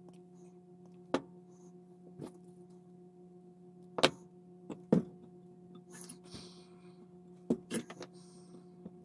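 Scattered sharp clicks and taps of small hand tools and parts being handled while wiring LEDs and a resistor, the loudest about four and five seconds in, over a steady low electrical hum.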